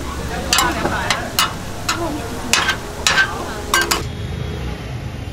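Vegetable egg rolls sizzling as they pan-fry on a griddle, with a cooking utensil scraping and clacking irregularly against the pan. About four seconds in it gives way abruptly to a quieter low hum.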